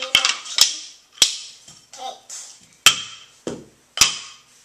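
About five sharp taps and knocks, spaced irregularly, as small objects are handled on the floor, with a child's brief voice in between.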